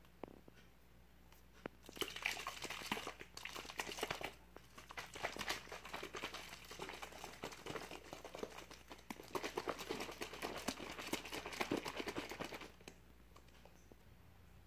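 A plastic bottle of thick meal-replacement drink shaken hard by hand, the thin plastic crinkling and clicking in dense bursts. The shaking starts about two seconds in, pauses briefly, then runs on until near the end.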